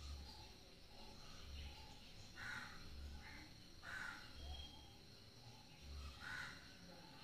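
Faint background noise with a low throb repeating about every second and a half, a steady faint high hum, and three short distant animal calls.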